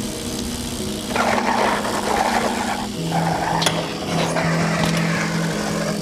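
Background music: held low notes that change pitch every second or two, with a louder, rougher layer coming in about a second in.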